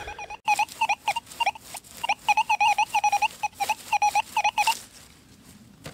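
XP Deus 2 metal detector giving a run of short, loud, warbling beeps, many in quick pairs, about three or four a second, as the coil sweeps back and forth over a target; they stop near the end. The doubled beeps mark a target lying right at the surface.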